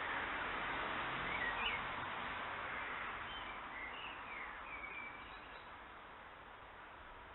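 Songbirds chirping and singing over a steady hiss of background noise, which fades down over the second half.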